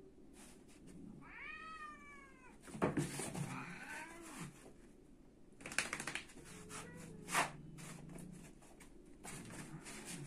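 Cat yowling at a dog in a standoff: one long drawn-out call that rises then falls about a second in, then harsher cries. Sharp knocks and scuffles follow, and a low drawn-out growl comes later.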